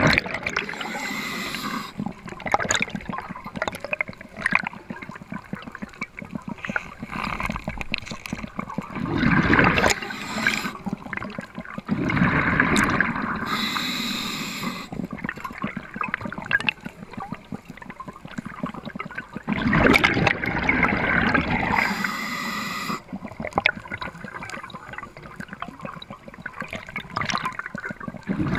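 Underwater water noise picked up by a camera in a waterproof housing while the spearfisher swims: muffled rushing and gurgling that swells and fades in surges, with scattered clicks and knocks.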